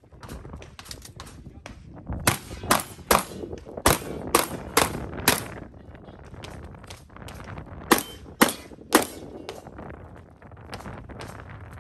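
Pistol gunfire in fast strings. About seven sharp shots come roughly half a second apart from about two seconds in, then three more near eight seconds in, with fainter shots between.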